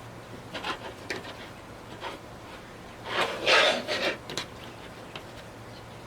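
Fabric and stabilizer being worked into a plastic embroidery hoop: rubbing and scraping with a few light clicks, and one louder scrape a little past halfway.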